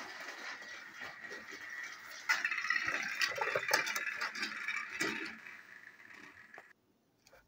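Battery-powered TrackMaster toy train engines whirring and rattling on plastic track. The sound gets louder about two seconds in as the engines push against each other, then cuts off suddenly near the end.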